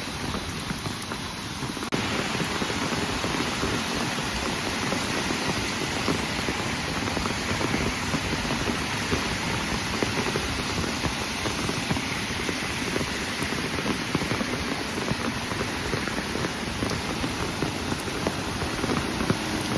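Heavy rain pouring down, a steady dense hiss of rain on the ground and standing water; it gets louder about two seconds in.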